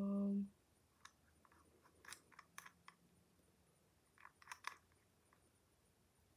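Rotary-dial combination padlock being turned by hand: faint, irregular small clicks and scrapes.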